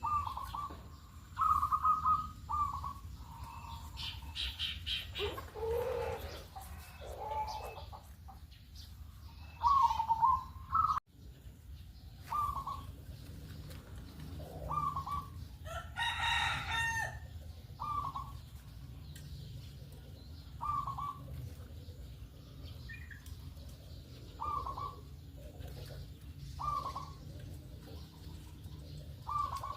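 Zebra doves (perkutut) cooing: short coo notes repeated every couple of seconds. About sixteen seconds in, one longer, louder call with many overtones stands out above them, over a steady low hum.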